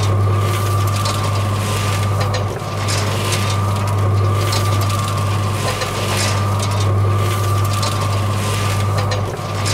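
Small electric motor of a miniature concrete mixer running steadily with a loud low hum, its soda-can drum turning and rattling on the frame.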